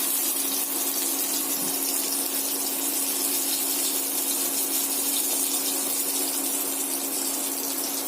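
Soya-chunk cutlets frying in hot oil, a steady, even sizzle.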